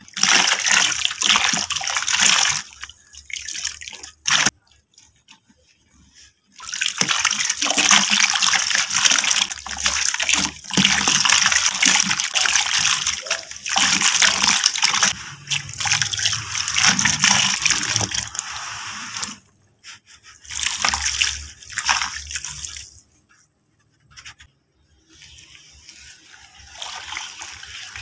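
Dry powdered red dirt poured in a stream into a tub of muddy water: a hissing, splashy pour in several long runs with short breaks. Near the end, a quieter wet squelching as hands work the mud.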